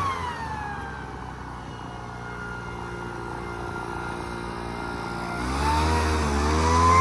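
Poulan Pro backpack leaf blower engine dropping from high throttle to a low idle right at the start, running steadily at the lower speed, then revving back up to full throttle from about five seconds in.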